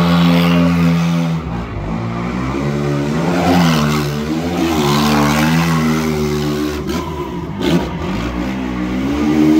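Sport quad (ATV) engine revving hard, its pitch rising and falling again and again as the rear tyres spin and smoke in a burnout. The revs cut briefly a couple of times near the end.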